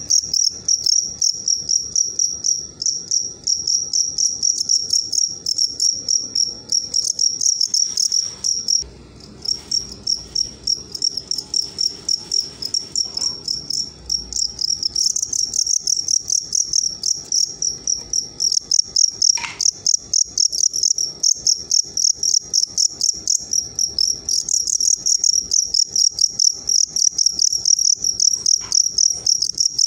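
Male fighting crickets chirping loudly in rapid pulsed runs, with a brief pause about nine seconds in before the chirping carries on.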